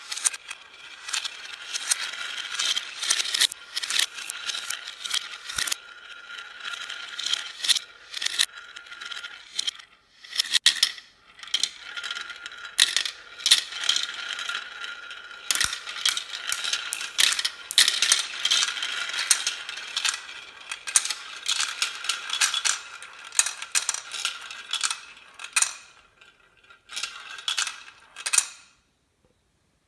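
Marbles running down a marble-run track, clicking and clattering against each other and the track in a dense, rapid stream, with a brief lull about ten seconds in and another near the end before it stops.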